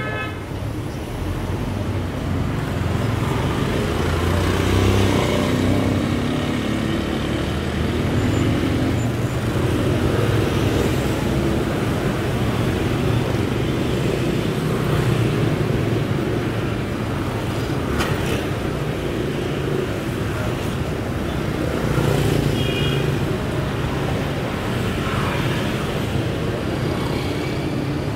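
Steady road traffic noise of passing vehicles, with a short high-pitched tone about two-thirds of the way through.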